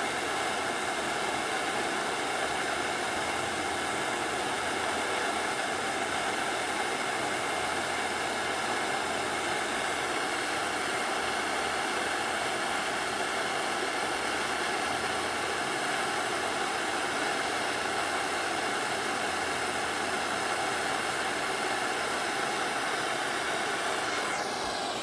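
Handheld gas blowtorch flame hissing steadily and without a break, heating an aluminium crankcase for a solder repair.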